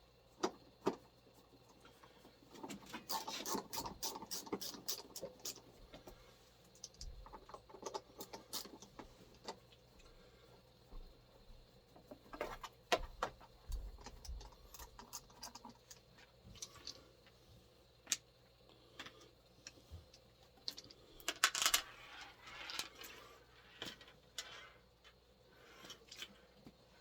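Irregular handling noises: scattered clicks, taps and rustling of small objects being picked up and set down, busiest near the start and again about two-thirds of the way through.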